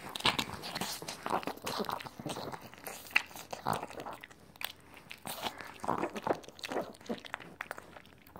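Chihuahua eating ham: wet chewing and smacking with many quick mouth clicks, right up close to the microphone.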